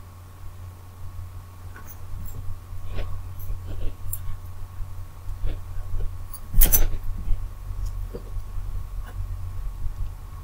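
A steady low electrical hum with a faint high tone, broken by scattered short clicks and knocks, the loudest a cluster about two-thirds of the way through.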